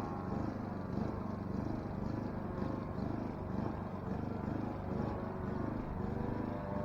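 Saito 304ST model-aircraft engine running in flight on an RC plane, its note wavering steadily as the plane moves about the sky. It runs continuously after a repair to a fuel-tank hose that had come loose and caused an in-flight engine stop.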